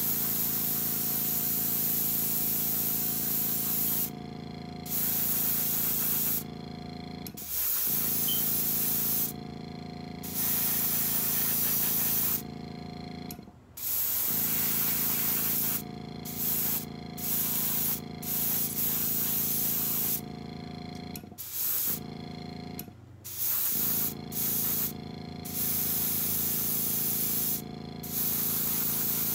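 Airbrush spraying paint in repeated on-off bursts as the trigger is pressed and released: long sprays of a few seconds at first, then shorter, quicker ones. A steady hum runs underneath throughout.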